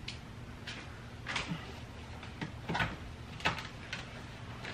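A handful of short rustles and scrapes as self-adhesive foam insulation is handled and pressed up against a car's bare roof panel, over a steady low hum.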